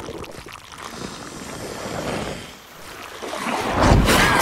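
Wet mud and water sloshing and swishing, swelling to a heavy wet splash about four seconds in, with a brief high squeak at the very end.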